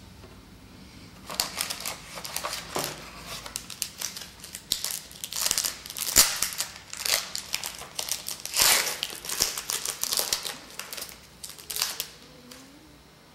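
Foil trading-card pack wrapper crinkling and crackling as it is handled, a fast irregular run of sharp crackles that starts about a second in and stops near the end.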